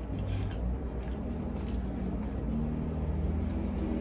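Someone chewing a mouthful of fried egg roll with the mouth closed, giving a few faint, soft mouth clicks over a steady low hum.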